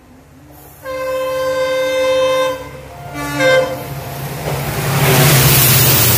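An EMD WDP-4D diesel locomotive hauling an express sounds its horn in one long blast and then a short one, then passes close at speed: a rising rush of wheel and engine noise with a deep rumble, loudest near the end.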